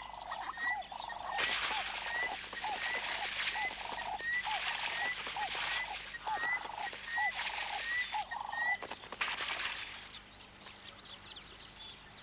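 Splashing and wing flapping in bursts as a black-headed heron dunks a struggling Cape turtle dove in shallow water. Under it, a bird calls with short notes repeated about twice a second, stopping about nine seconds in.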